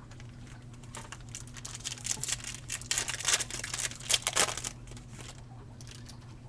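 A trading-card pack's wrapper being torn open and crinkled by hand, a burst of crackling from about a second in until near the end, over a steady low hum.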